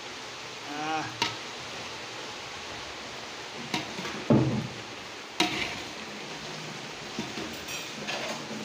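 A few knocks and clinks of metal against a large aluminium cooking pot of steaming rice, with one heavier thump about halfway through, over a steady hiss.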